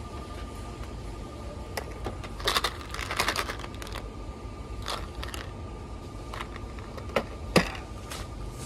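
Candy packages being handled on a store shelf: a quick cluster of clicks and rattles about two and a half seconds in as a candy tube is taken from the shelf, then scattered single clicks and a sharper knock near the end. A low hum and a faint steady high tone sit underneath.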